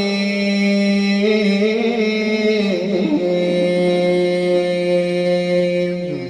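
Quran recitation: a man's voice holding one long melodic note at the close of a verse. The pitch steps up about three seconds in and falls away just before the end.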